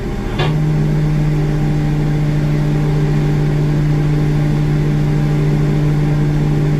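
Steady machinery hum at an airliner's nose gear before pushback, one constant low pitch with its overtone. A short knock comes about half a second in.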